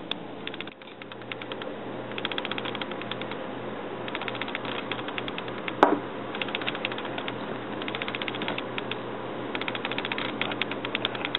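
Metal spoon beating an egg into soaked steel-cut oats in a bowl: several runs of quick clicking strokes, with one sharper clink a little past the middle.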